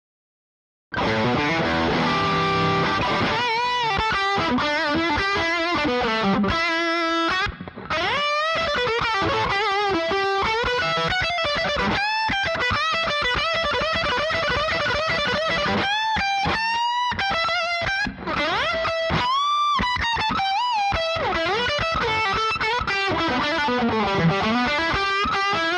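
Gene Baker b3 SL-K electric guitar played through a Magnatone combo amp: single-note lead lines full of string bends, slides and held notes with vibrato, starting about a second in, with two brief pauses.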